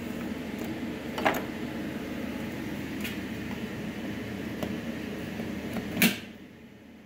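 ChargePoint EV charging connector being handled: a small click, a couple of faint ticks, then a sharp click about six seconds in, the loudest sound, as the connector latches into the Volvo XC90 T8's charge port. A steady low hum runs underneath and drops away after the latch click.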